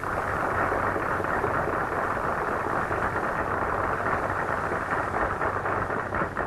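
Audience applauding steadily at the end of a song, heard on an old, narrow-band 1930s film soundtrack.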